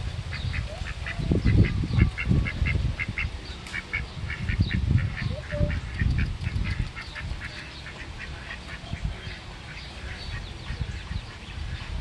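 Ducks calling in a rapid series of short calls, several a second, thinning out after about seven seconds. Bursts of low rumble come and go in the first half.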